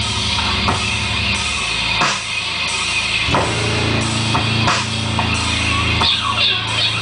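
Electric bass played live through effects and an amplifier, holding low notes that change about two seconds in and again a little over three seconds in, over a drum beat.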